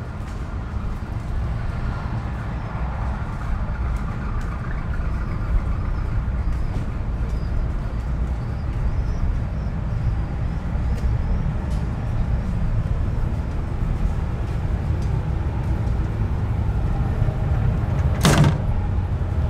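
Steady low engine rumble, with faint ticks and a short, loud burst of hiss near the end.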